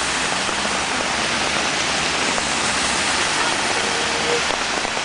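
Steady rush of water: heavy rain falling on a flooded street while cars plough through the deep floodwater, their tyres throwing up spray.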